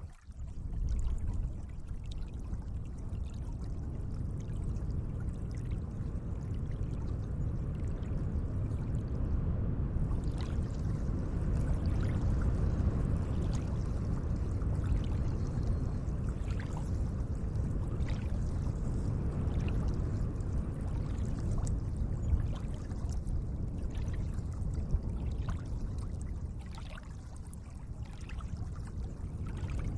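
Gentle lake water, a steady low wash with small splashes and trickles scattered through it, easing off slightly near the end.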